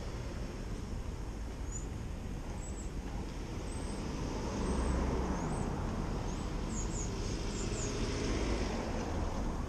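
Street traffic at a stop: a steady low rumble of idling and passing cars that swells about halfway through. Short, high bird chirps come and go through the middle.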